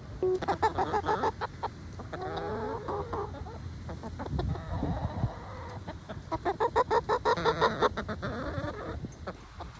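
Chickens clucking, with clusters of quick repeated clucks about a second in and again around seven to eight seconds, and drawn-out calls between.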